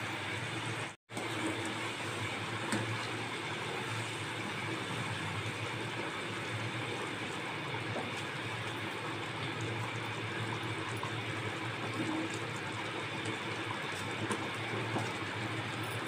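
Chicken curry gravy in a pan simmering with a steady sizzling, bubbling hiss just after warm water has been added, while a spatula stirs it. The sound breaks off briefly about a second in.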